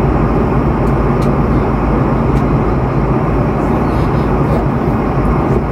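Jet airliner cabin noise in flight: an even, loud rush of engines and airflow with a low steady hum, and a few faint ticks.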